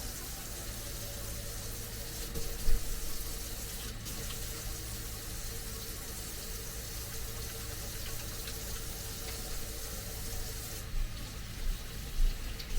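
Tap running into a sink while hands are washed under it, a steady rush of water. There is a low knock about two and a half seconds in and a few more near the end.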